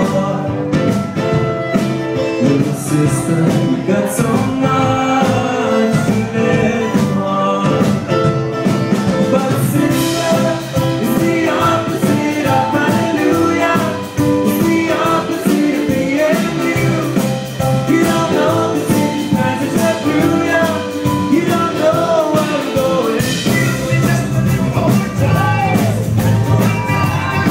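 Live pop music from the audience: acoustic guitar with band accompaniment, playing continuously.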